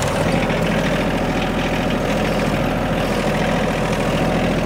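Diesel engine of a Kymron XH26D 3-ton mini excavator idling steadily, heard from the operator's seat.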